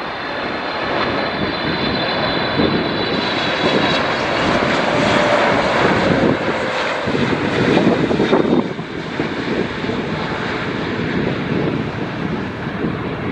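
Boeing 777-300ER's GE90 turbofan engines on landing approach: continuous jet engine noise with a high whine over it at first and a tone that slowly falls in pitch as the airliner passes. About nine seconds in the sound drops to a lower, steadier rumble.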